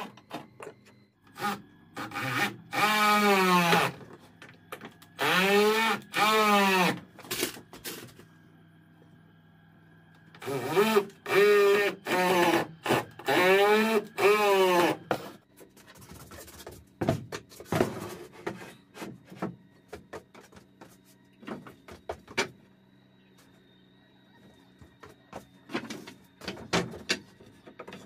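Hand saw cutting wood in three runs of back-and-forth strokes, each stroke rising and falling in pitch. Scattered knocks and taps follow in the second half.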